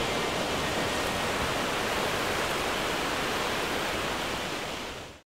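Steady rushing sound of sea surf on the shore, fading out about five seconds in.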